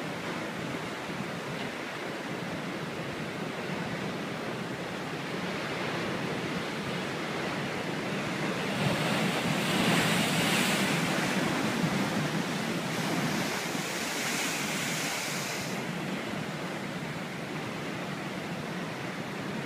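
Ocean waves breaking on a rocky shore: a steady wash of surf that builds into a louder crash and hiss about halfway through, then eases back.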